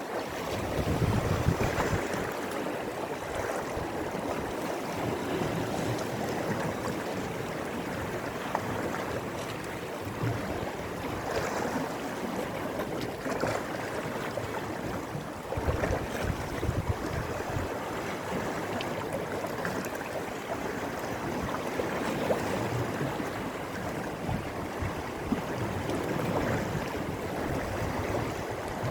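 Sea waves washing and surging with steady rushing water noise, and wind buffeting the microphone in low gusts.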